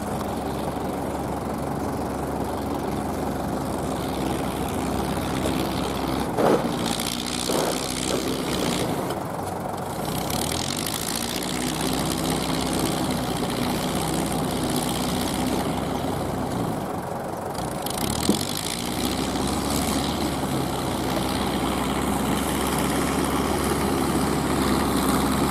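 Kubota ZL3001 tractor's diesel engine running steadily while pulling a straw baler. Its pitch sags and recovers twice, as the load changes. There are a couple of brief knocks about six to eight seconds in.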